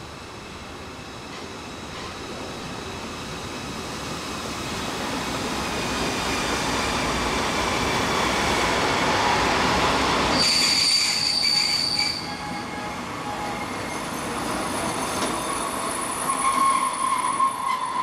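A train approaching and passing, growing steadily louder for about ten seconds, with its wheels squealing on the rails. The squeal is a sharp, high steady tone for a second or two about ten seconds in, then lower tones that waver near the end.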